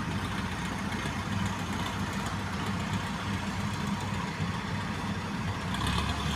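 Rice combine harvester's engine running steadily with a low, rough drone.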